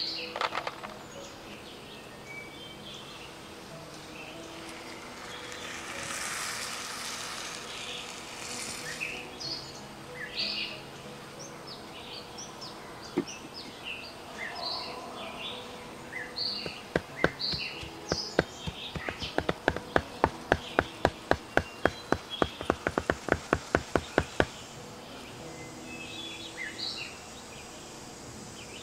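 A cleaver chopping rapidly on a wooden stump block, about three sharp strikes a second, in a run through the second half. Short bird chirps sound throughout.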